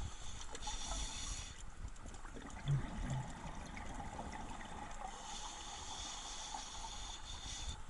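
Scuba regulator exhaust bubbling underwater as the diver breathes out: two long bubbly rushes, one at the start and one from about five seconds in, with a quieter stretch between. Two brief low thuds come a little under three seconds in.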